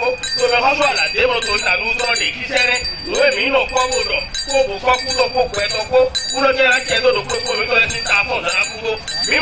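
Voices chanting with a bell ringing repeatedly.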